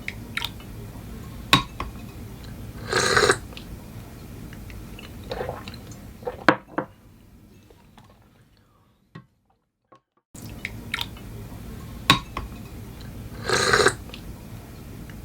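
Coffee ware being handled: sharp clinks and light knocks of glass and cups, with a short splashy burst twice, about 3 and 13.5 seconds in. A few seconds of near silence fall midway.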